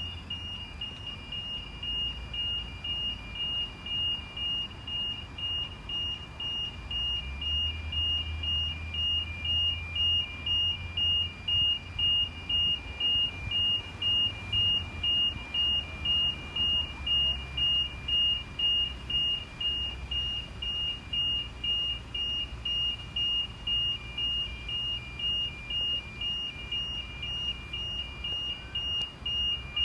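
Railway level crossing warning bell ringing steadily: an electronic high-pitched ding-ding, about two strokes a second, alternating between two notes, the sign that the crossing is active for an approaching train. From about seven seconds in, a low engine rumble runs underneath.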